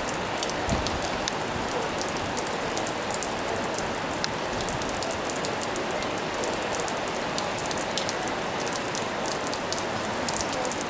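Pouring rain falling steadily, with many sharp drop ticks landing close to the microphone.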